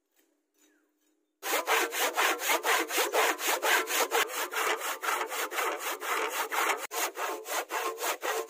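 A handsaw cutting through a barked wooden log in fast, even back-and-forth strokes, about four a second, starting about a second and a half in.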